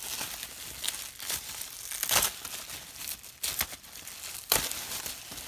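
Bubble wrap crinkling and crackling in irregular bursts as hands pull it open, with sharp tearing sounds among the crinkles.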